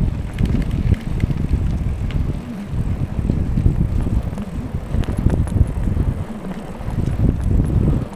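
Wind buffeting the microphone of a camera on a moving bicycle, a rumble that swells and dips, with scattered clicks and rattles from the bike.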